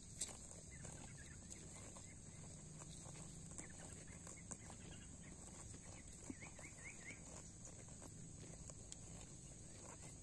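Village cattle grazing: scattered soft clicks and crunches of grass being torn and chewed, with the odd hoof step, over a steady high hiss. Four quick high chirps about two-thirds of the way through.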